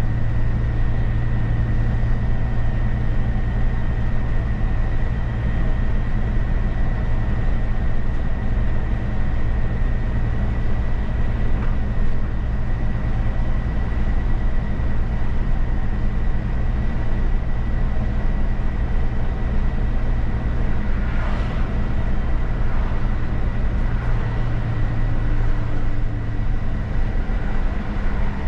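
Mercedes-Benz bus driving at a steady speed, heard from the cab: a constant low engine drone with tyre and road noise, and a thin steady high whine above it.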